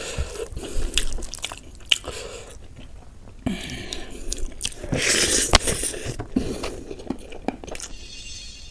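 Close-miked eating sounds: a mouthful of chicken biryani being chewed, with a run of sharp wet clicks and smacks, busiest a little past the middle.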